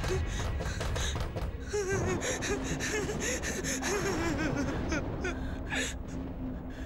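A person gasping and whimpering in fright, with a low steady hum under it from about two seconds in.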